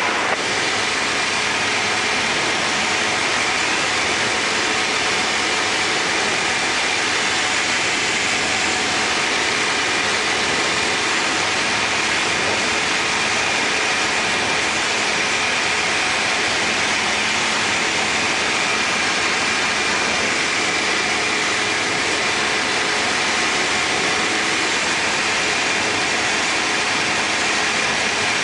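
Steady engine and propeller drone of a Tecnam P92 Eaglet light aircraft in flight, heard from inside the cabin as an even, unchanging noise with faint steady tones.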